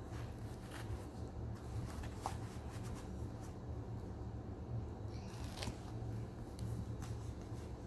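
Kinetic sand being packed by hand into a plastic ball mold and crumbling in a plastic tray: soft grainy scraping and rustling with a few light clicks, over a steady low hum.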